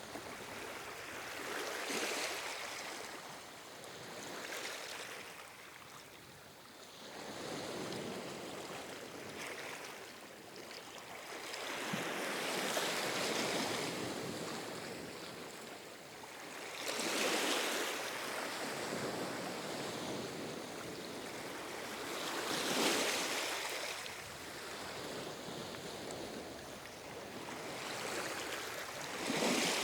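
Calm ocean waves, the surf swelling and falling away about every five seconds.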